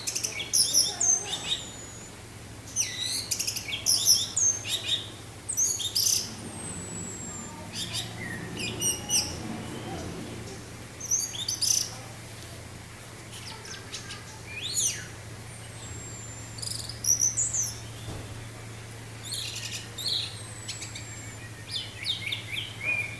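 Orange-headed thrush singing: quick phrases of varied chirps, trills and sharp falling whistles, one after another with short pauses, over a steady low hum.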